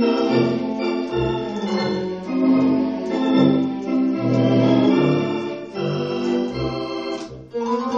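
Yamaha HS6 electronic organ playing in a theatre-organ style: sustained chords over a bass line that pulses on the beat, with a brief break a little before the end before a new chord comes in.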